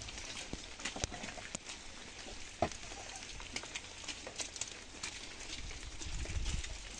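Scattered light knocks and clicks of a shovel and concrete blocks being handled, with footsteps, and one sharper short knock a little before halfway.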